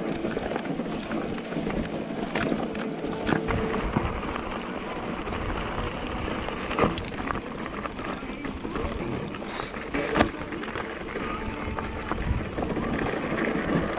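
E-mountain bike on a rocky track: steady crunching and rattling of tyres and frame over loose stones, with scattered sharp knocks.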